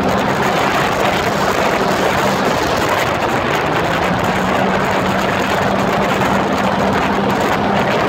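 Jet ski running at a steady speed: a constant engine hum under a dense rush of wind and water noise.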